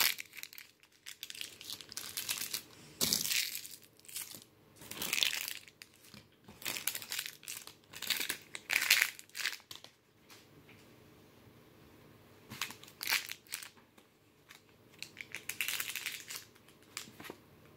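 Close, irregular crinkling and crushing handling sounds, coming in bursts of a second or two with short pauses between.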